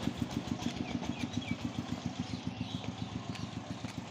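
A small engine running steadily at idle, a fast, even low throb.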